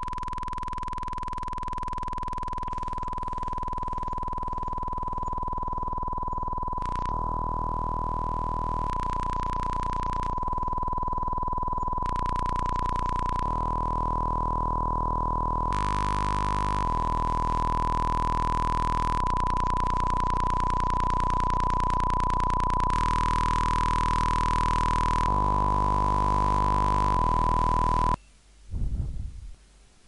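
Synthesized sound effect: a steady high-pitched tone, like a long beep, held over a harsh noisy drone that slowly grows louder, then cuts off suddenly near the end.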